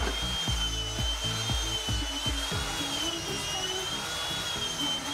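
Handheld electric power tool running along a hardwood beam: a steady high motor whine that wavers slightly in pitch, over background music.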